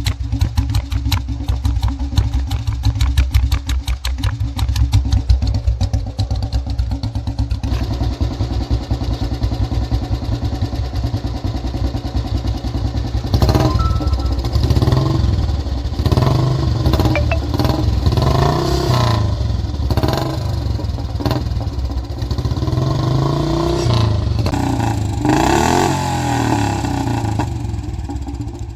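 Old Royal Enfield Bullet 350's single-cylinder engine running at idle with a fast, even beat, then revved up and down repeatedly from about halfway through, its pitch rising and falling with each blip of the throttle.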